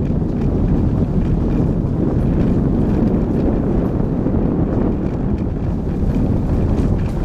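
A car driving steadily along a gravel track: a constant low rumble of engine and tyres on loose gravel, mixed with wind noise on the microphone.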